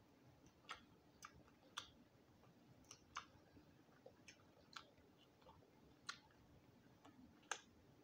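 Faint, irregular wet mouth clicks and lip smacks, roughly one a second, from nibbling meat off a small roasted quail bone held at the lips.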